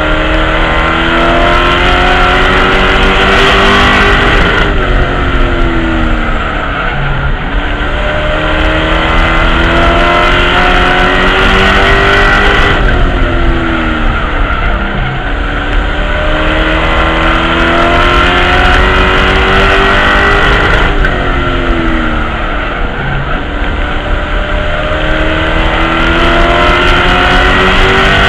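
Race truck's V8 engine at racing speed, heard from inside the cockpit: its pitch climbs for several seconds down each straight, then drops off as the driver lifts for the turn, about three laps in a row.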